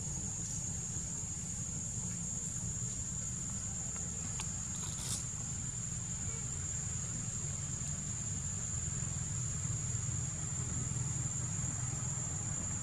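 Steady high-pitched insect drone over a low rumble, with a faint click near the middle.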